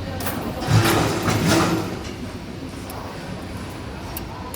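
CNC camless spring forming machine (ST25-10) running as it forms 2.2 mm wire into double hooks: a steady mechanical drone with scattered sharp clicks, and a louder noisy rush lasting about a second, starting a little under a second in.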